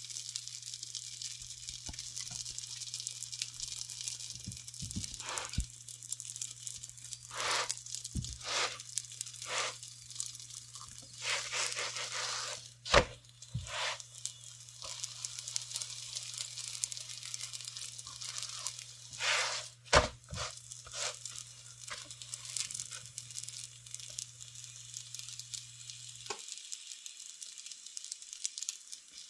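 Oil roti frying on a hot griddle, a steady sizzle with repeated scraping strokes as the bread is worked and turned, and two sharp knocks partway through. A low steady hum under it cuts off suddenly near the end.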